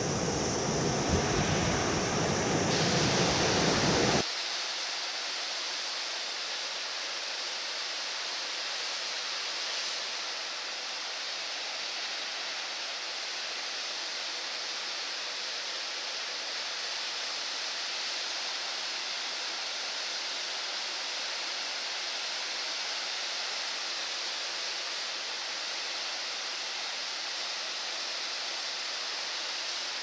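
Heavy typhoon surf breaking on the coast, a steady roar of waves and spray. For the first four seconds it is louder with a deep rumble, then it cuts suddenly to a thinner, even hiss.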